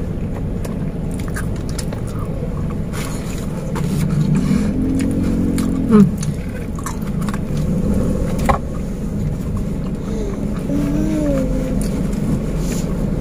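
Steady low hum of a car running while parked, heard from inside the cabin, with chewing and light clicks of a spoon on a paper-wrapped plate. A short murmured vocal sound comes about five seconds in and again near ten seconds.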